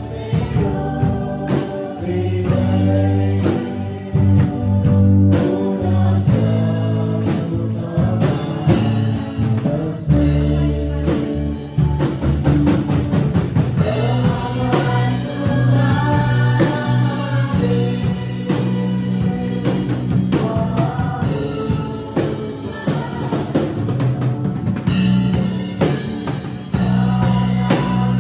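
Congregation singing a worship song led by a singer at a microphone, accompanied by a live band of drum kit, electric bass and acoustic guitar, with a steady drum beat.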